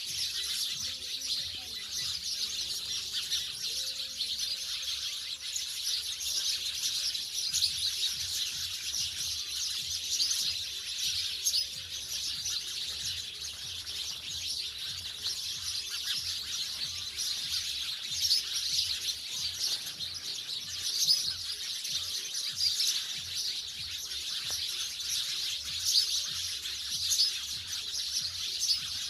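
House sparrows chirping nonstop, many short chirps overlapping as from a flock.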